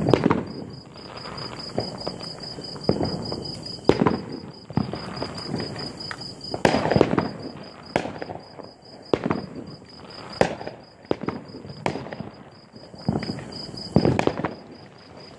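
Firework bangs and crackles going off irregularly, about six loud reports with smaller pops between them. Crickets chirp underneath in a rapid, steady pulse.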